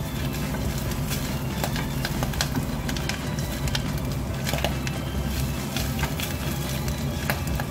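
Bacon sizzling and crackling in hot butter in a small saucepan on a gas burner, with a wooden spoon stirring it through. Steady frying hiss broken by frequent sharp pops.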